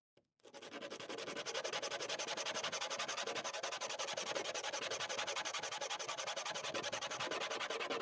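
Block of wood sanded by hand on a sheet of black sandpaper: quick back-and-forth scrubbing strokes in a steady rhythm, starting about half a second in.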